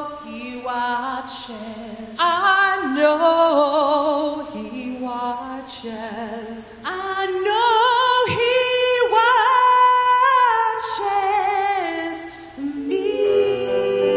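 Two women singing a hymn-style duet into handheld microphones, with long held notes that waver with vibrato.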